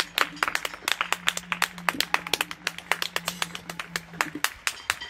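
People clapping their hands in quick, uneven claps, several a second.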